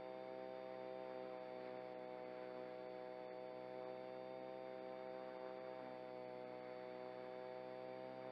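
FW200 micro helicopter's direct-drive motor and rotor heard from the onboard camera, a steady whine with a high tone above it, holding one pitch as the helicopter hovers.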